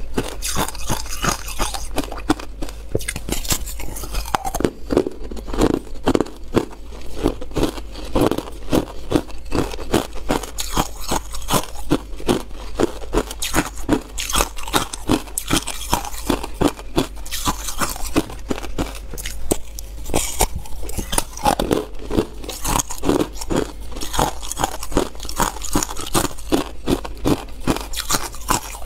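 Ice being bitten and crunched between the teeth: a continuous run of sharp crunches, several a second, from a block of frozen-together ice cubes.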